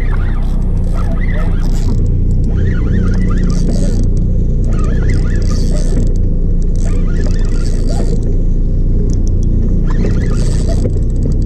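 Fishing boat's motor running steadily at trolling speed, a low, even hum that stays constant throughout.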